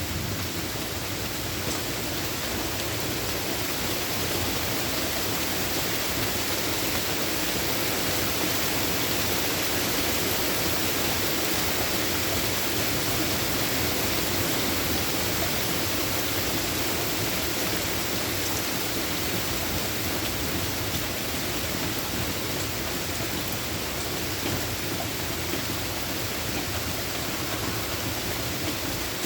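Steady rain falling, an even, unbroken hiss, with the last of a thunder rumble dying away in the first second.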